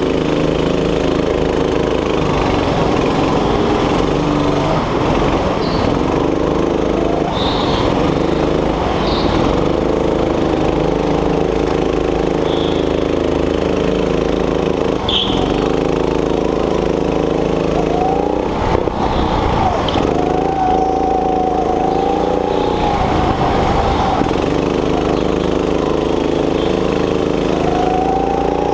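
Go-kart engine heard from on board, its pitch climbing under throttle and falling away again and again through the laps, with short high squeaks now and then.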